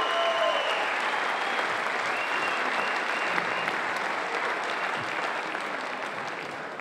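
Applause, a dense even patter of many hands, fading gradually toward the end. A few held musical notes die away in the first half-second.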